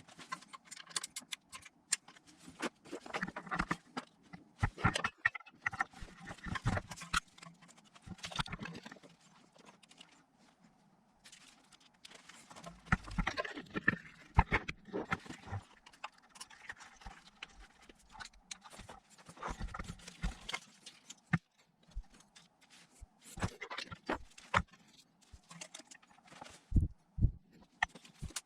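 Irregular clicks, knocks and rustling of a wiring loom being handled and fitted back onto an engine, with plastic clips and connectors tapping against the engine.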